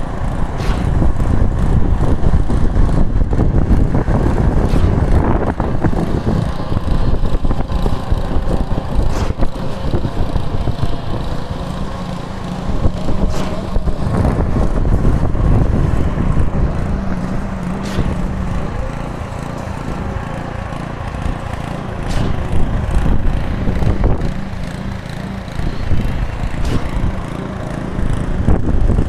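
Heavy diesel engine of concreting machinery running steadily during a concrete pour, with its level rising and falling a little and a few light knocks.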